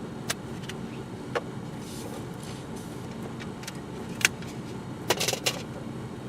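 Scattered sharp clicks and a short rattling cluster about five seconds in, from a CD being handled and fed to the car stereo, over a steady low hum in the car's cabin.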